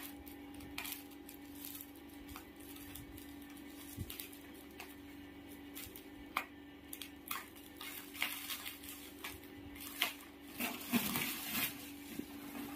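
Scissors snipping through the plastic wrapping of a rolled memory foam mattress in short, irregular clicks, with the plastic crinkling more densely about two-thirds of the way through. A steady low hum runs underneath.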